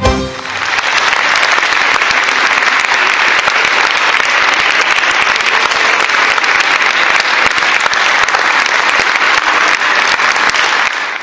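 The last chord of the music dies away at the start, then an audience applauds with steady, dense clapping that cuts off abruptly at the end.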